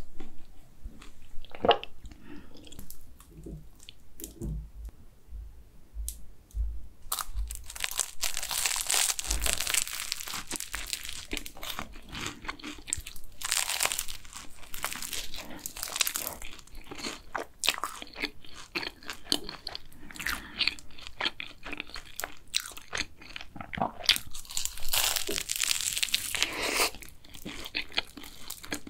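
Close-miked eating: for the first several seconds, soft swallowing gulps from a drink. Then bites into a flaky raspberry cronut, the crisp laminated pastry crunching and crackling as it is chewed, in several loud bursts through the rest of the clip.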